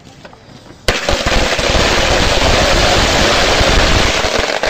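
A string of firecrackers going off, starting suddenly about a second in and running on as a dense, loud rattle of rapid bangs.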